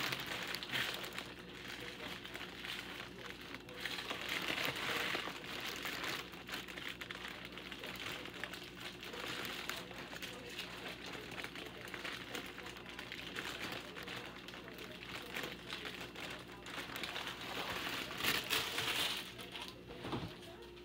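Continuous rustling and crinkling with many small irregular clicks, over a steady low hum.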